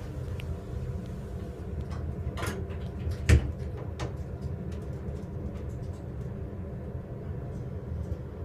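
Hydraulic elevator (a Montgomery modernized by Schumacher) heard from inside the car as it descends: a steady low hum, with one sharp knock about three seconds in and a few lighter clicks around it.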